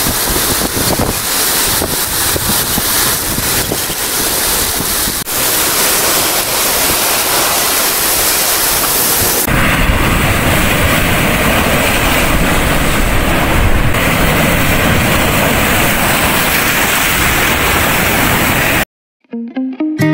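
Wind buffeting the microphone over sea surf: a loud, steady rush of noise that changes character about halfway through. It cuts out near the end and guitar music begins.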